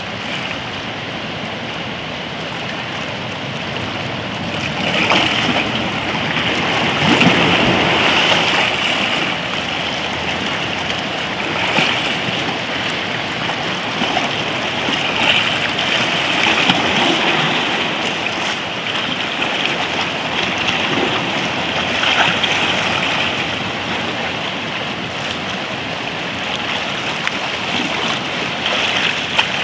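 Small sea waves washing over rocks and shallows: a continuous rushing that swells and eases every few seconds, loudest about five to nine seconds in.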